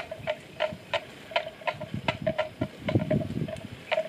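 Water buffalo grazing, tearing off mouthfuls of grass: a quick, uneven run of short crisp snaps, about three a second, with low crunching swells about two and three seconds in.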